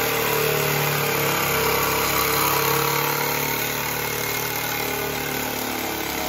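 Reciprocating saw running steadily, its blade cutting through the boiler's iron pipe, with a steady motor hum under the grinding of the cut.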